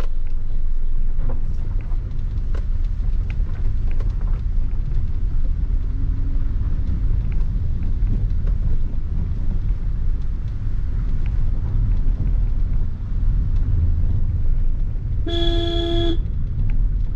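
Maruti Suzuki Ignis driving in second gear on a rough dirt road, heard from inside the cabin: a steady low rumble of engine and tyres with scattered clicks and knocks as the car bumps over the surface. Near the end the car's horn sounds once, for under a second.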